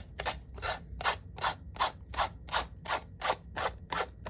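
Coarse manicure nail file rasping back and forth along the edge of an acrylic stamping block, sanding away the excess napkin paper glued on with Mod Podge. Even, rhythmic strokes, about three a second.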